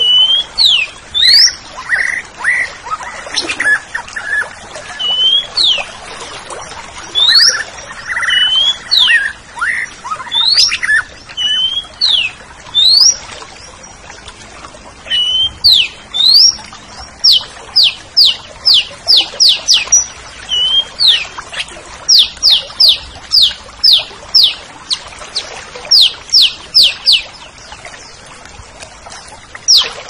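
Orange-headed thrush (anis merah) singing: loud, sharp whistled notes that sweep steeply up or down, given in quick runs of two or three a second, mixed with short slurred whistles.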